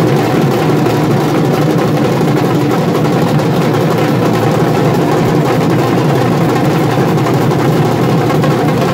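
A street troupe of drummers beating large frame drums and double-headed drums with sticks: loud, dense, unbroken drumming.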